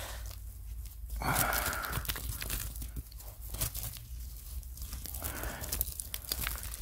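Gloved hand scraping and pulling crumbly dump soil away from a buried glass bottle, with loose earth falling and many small crunches and clicks.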